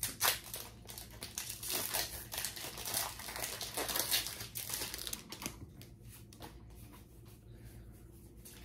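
Foil booster pack wrapper being torn open and crinkled, a run of crackling for about five seconds, then fainter rustling as the cards are handled.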